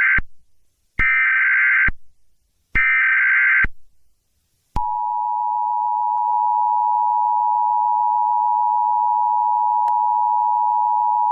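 Emergency Alert System header: the tail of one burst and two more short bursts of screeching SAME data tones, each under a second. About five seconds in, the steady two-tone EAS attention signal starts and runs on.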